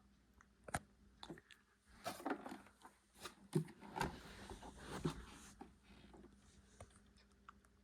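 Irregular clicks, knocks and rustling of something being handled, bunched in the first half; no motor is running.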